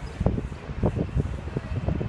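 Wind buffeting the microphone: an irregular low rumble in uneven gusts.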